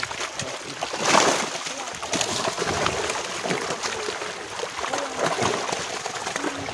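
Big carp thrashing in shallow pond water inside a hauled-in seine net, with repeated irregular splashes, the loudest about a second in.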